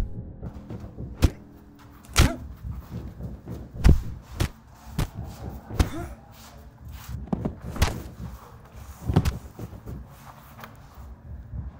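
Punches and blows landing in a hand-to-hand fight: about ten sharp thuds and smacks at irregular intervals, a few of them much louder than the rest.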